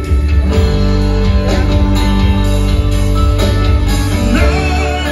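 Live rock band playing loudly through a PA, with guitars over a heavy bass, recorded from within the audience.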